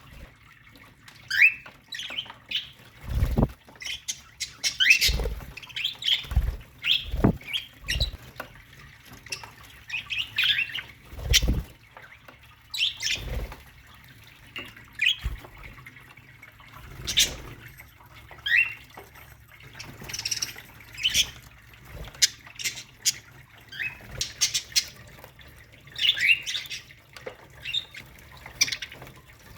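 A colony of budgerigars chirping and squawking, many short calls and quick rising squeaks overlapping throughout. Several brief low thumps come in the first half.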